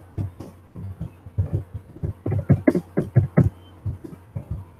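Computer keyboard typing: a quick, irregular run of keystrokes, several a second, thickest in the middle, over a faint steady low hum.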